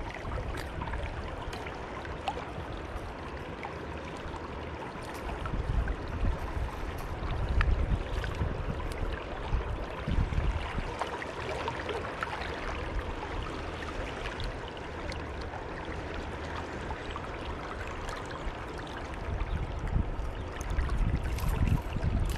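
Steady rush of river water flowing around a wading angler's legs, with uneven low rumbles and a few faint clicks.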